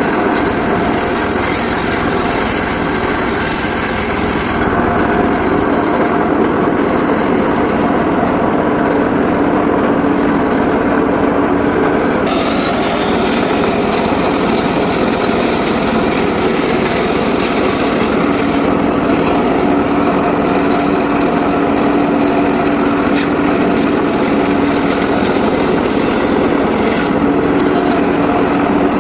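Homemade circular saw running steadily while sawing sengon laut wood, a continuous loud mechanical drone whose higher tones shift about 4 and 12 seconds in.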